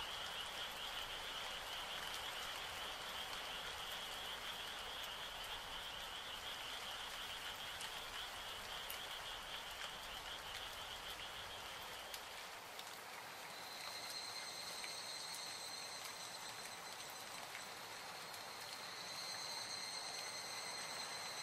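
Steady rain with a chorus of frogs calling. About twelve seconds in, the frogs stop and the high, steady call of an evening cicada (higurashi) takes over, breaking off briefly near the end.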